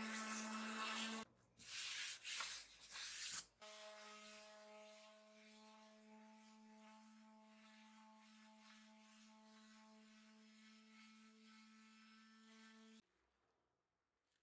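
Electric sander running against a softwood tabletop with a steady motor hum. It cuts off about a second in, and a couple of seconds of scraping and handling noise follow. A second, quieter sander run then goes on until about a second before the end.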